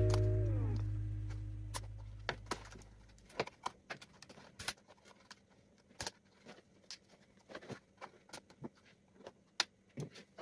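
Background music fading out over the first few seconds, followed by scattered light clicks and taps, irregular and a second or less apart.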